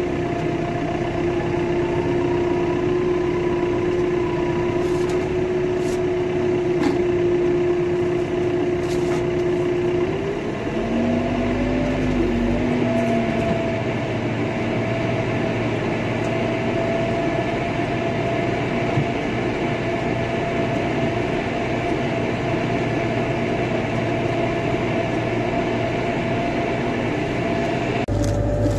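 A vehicle engine running steadily, its pitch dropping and wavering about ten seconds in, then settling again.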